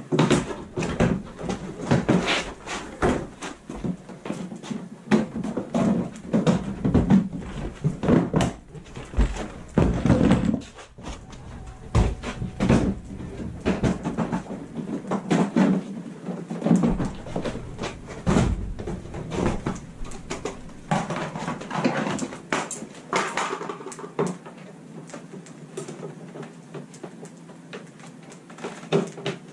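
Hurried handling of a Ski-Doo snowmobile's plastic hood and body panels: a fast, irregular run of clicks, snaps and knocks from clips and fasteners coming loose, with heavier thuds as parts are lifted off and set down. It is lighter in the last few seconds.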